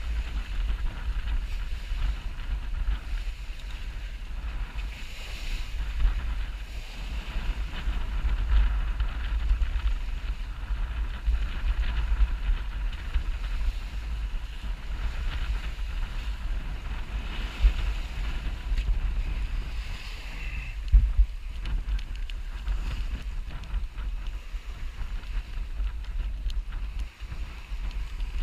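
Wind buffeting the microphone of a sailboat under way: a steady, gusting low rumble, with water rushing along the hull beneath it.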